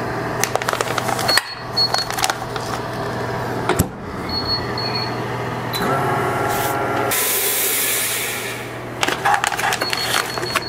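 Chamber vacuum sealer drawer running its vacuum pump with a steady hum while the sealed bag of salmon is handled, with clicks of the lid and plastic. The pump's tone changes about six seconds in. Then comes a hiss of air rushing back into the chamber as it vents after sealing.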